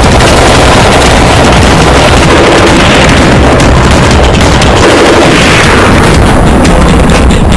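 Loud, heavily compressed background music with a dense, distorted, booming sound that runs at constant volume.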